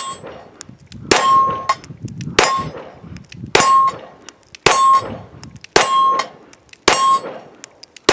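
Sig P320 X5 9mm pistol firing a steady string of shots about a second apart, each shot followed by the brief ring of the steel target being hit.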